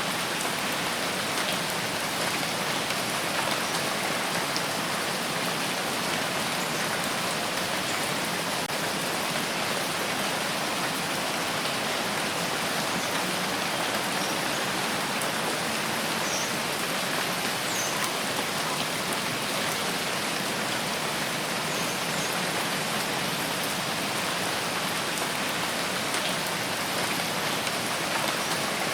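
Steady rain falling and pattering on surfaces, a constant even hiss with faint scattered drop ticks.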